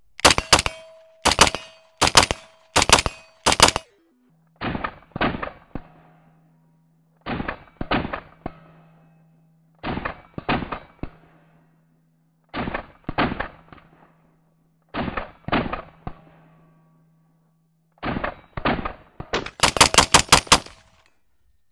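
Semi-automatic 18-inch Cobalt Kinetics CK Pro AR-15 in 5.56 with a muzzle brake, firing. A quick run of shots comes first, then six quick pairs (double-taps) a couple of seconds apart, then a fast string of about eight shots near the end.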